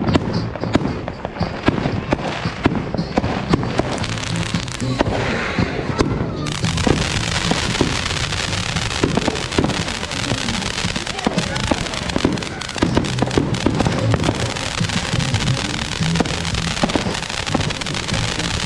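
Ground fountain firework ("snow cone") sputtering, then flaring about six seconds in into a steady spray of sparks: a dense hiss full of crackles. Scattered pops and bangs from other fireworks sound throughout.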